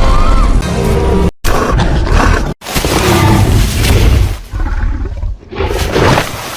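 Film sound-effect roars of a Tyrannosaurus rex: loud, deep, drawn-out calls, split by two abrupt cuts to silence about one and a half and two and a half seconds in.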